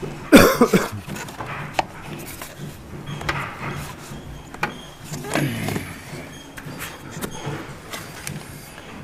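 Clicks and knocks of a coil pack being pressed down onto the spark plugs of a Vauxhall Corsa 1.4 engine, with a loud squeaky scrape just after the start and another, falling in pitch, about halfway through.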